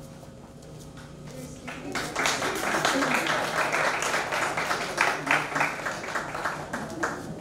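A group of people applauding, starting about two seconds in and stopping shortly before the end.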